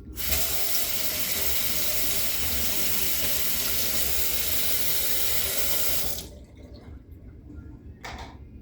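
Kitchen faucet running in a steady stream, turned on abruptly and shut off about six seconds later, followed by a short knock.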